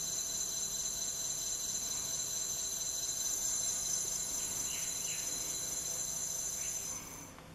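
A 24V 250W brushless gearless hub motor spinning free under its controller with a steady high-pitched electronic whine, the display reading about 15 km/h. The whine cuts off suddenly about seven seconds in.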